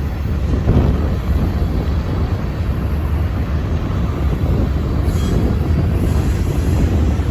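Union Pacific freight train passing, a steady rumble of rolling cars, with wind buffeting the microphone.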